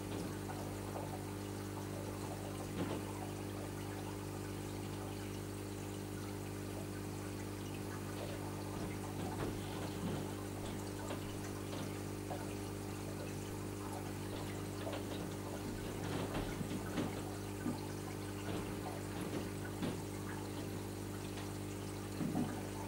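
Reef aquarium's water circulation running: water trickling and pouring over a steady hum, with a few brief gurgles, more of them in the second half.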